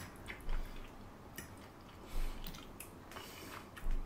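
A person chewing a mouthful of fusilli pasta in tomato sauce, with a few short clicks and three soft low thumps spread through it.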